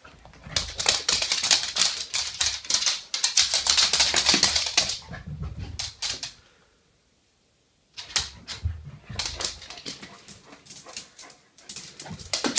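A basset hound's claws and body scratching and scuffing on a shag rug and a wooden floor as it plays frantically. A dense run of rapid scratches lasts about five seconds, then stops for nearly two seconds before more scratching and pattering starts again.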